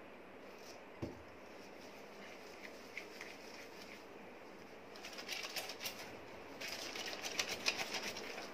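Wet cloth lathered with liquid hand wash being scrubbed between the hands: a quick, uneven run of wet rubbing strokes from about five seconds in. A brief knock about a second in.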